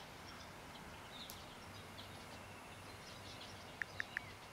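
Faint background ambience with distant birds chirping, and four quick high pips close together near the end.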